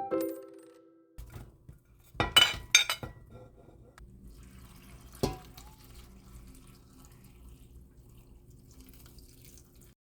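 Chiming background music ends about a second in. It gives way to a low steady hum, with a quick run of sharp kitchenware clinks and clatters and a single ringing clink a few seconds later.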